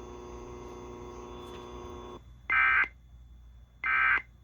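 A steady low hum on the broadcast audio for about two seconds, then two short, loud digital data bursts just over a second apart. These are the Emergency Alert System's end-of-message (EOM) code bursts, which close the alert.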